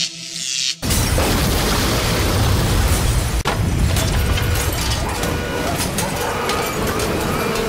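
Electronic music cuts off less than a second in, and a loud explosion rumble takes over, running on as a steady dense noise of fire with scattered sharp cracks.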